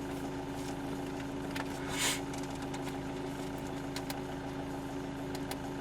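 Steady idling hum of the Renault Laguna's engine heard from inside the cabin, with a few faint clicks and a brief rush of noise about two seconds in.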